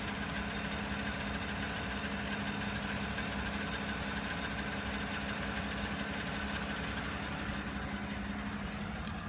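2016 Chevrolet Silverado engine idling steadily with a ticking from the engine compartment, which the dealership traced to a failing vacuum pump.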